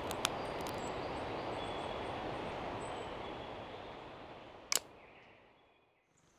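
Bush ambience: a steady hiss with a few faint, high bird calls, fading out to silence over the last couple of seconds, with a sharp click just before it goes quiet.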